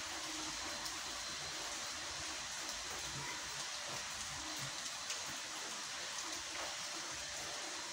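Steady rain falling on a wet street and pavement, an even hiss with a few sharper drop ticks.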